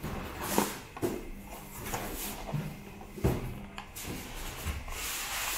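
Handling noise as a small plastic toy is pressed into a moulded plastic tray inside a tin box: scattered knocks and plastic rustling, with two louder knocks about half a second in and about three seconds in.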